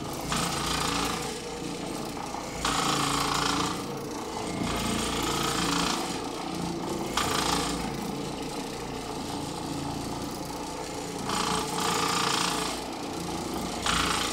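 Oreck orbital floor machine running on carpet with a rattling vibration, caused by loose Phillips-head screws on its base. A higher hiss swells and fades every second or two over the steady drone.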